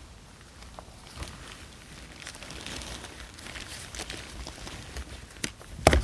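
Rustling and crinkling of a Reed Chillcheater rip-stop nylon cag as it is pulled and smoothed over the kayak cockpit, with a sharp knock near the end.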